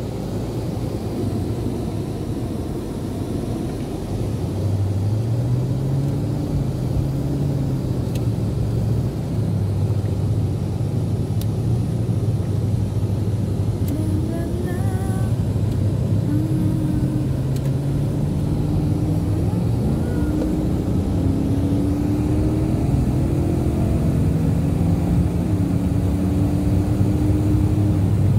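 A BMW's engine and road noise heard inside the cabin as the car accelerates along the road. It gets louder about four seconds in, and the engine note steps up and down in pitch.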